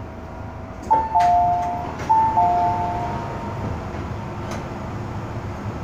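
A two-note descending electronic chime, high then low, sounds twice about a second apart over the steady running rumble of an MTR M-Train carriage.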